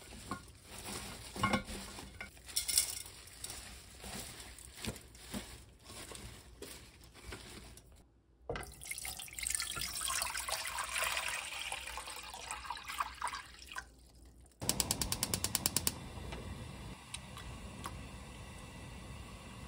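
Hands tossing salted young radish greens in a stainless steel bowl, with rustling and light knocks. Then water poured into a cooking pot splashes for about six seconds. About two thirds of the way through comes a quick run of rapid clicks, about ten a second, followed by a steady low hiss.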